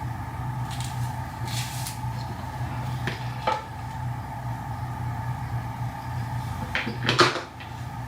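A steady electrical hum with several short knocks and clatters of objects being handled, the loudest a clatter about seven seconds in.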